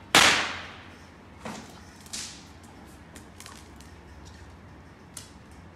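A sudden loud sound that fades over about half a second, then two lighter knocks and a scatter of light ticks and clicks: a kitten pouncing and batting a small toy across a hard marble floor.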